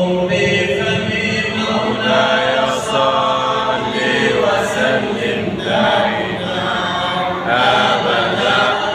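Unaccompanied male chanting of a madih, an Arabic devotional song praising the Prophet Muhammad, with long held and melismatic notes.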